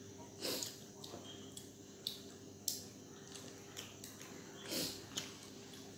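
People eating rice and curry by hand: scattered short clicks and chewing sounds, a few of them louder, over a faint steady hum.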